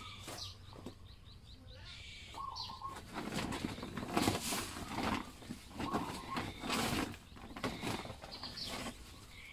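A series of dry rustling, scraping noises, loudest from about three seconds in, with small birds chirping faintly in the background.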